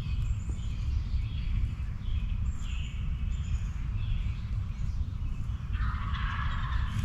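Wild turkey gobbling, a rattling call in the last second, over a steady low rumble. Short high bird calls come and go earlier.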